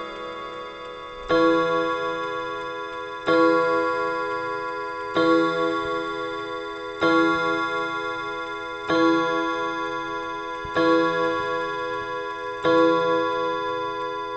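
Franz Hermle & Sohn dual-chime clock striking the hour: seven even strokes about two seconds apart, each ringing on and fading before the next, counting seven o'clock. The last notes of the preceding chime tune die away before the first stroke.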